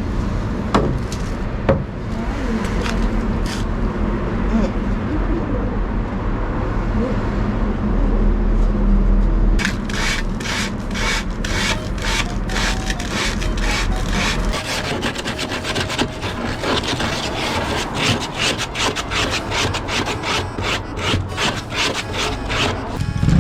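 Saw cutting through wood with quick back-and-forth strokes, starting about ten seconds in. Before that there is a low, steady hum.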